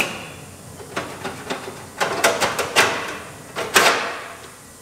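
Sheet-metal clanks and rattles from a car's stripped front end: a sharp blow on the frame rail with a short ring, then a run of knocks, a quick cluster of strikes, and the loudest clang near the end as loose panels are worked free.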